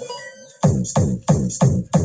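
Electronic dance remix played through a large sound system during a sound check: after a short break, a run of heavy kick-drum hits starts about half a second in, about three a second, each dropping sharply in pitch.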